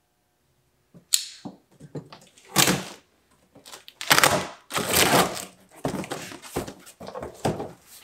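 Box cutter slitting the packing tape on a large cardboard box, then the cardboard flaps being pulled open and the contents shifting, heard as a string of short scraping and rustling bursts starting about a second in.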